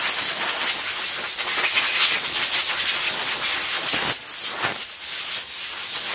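Compressed-air blow gun hissing as it blasts sanding dust off a carved wooden pumpkin, starting and stopping suddenly, with a couple of brief breaks past the middle.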